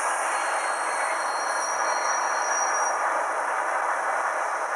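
Model steam locomotive sounds from a Hornby HM7000 sound decoder's speaker in a 9F model: a steady rushing noise, with two high, thin squealing tones overlapping through the first three seconds.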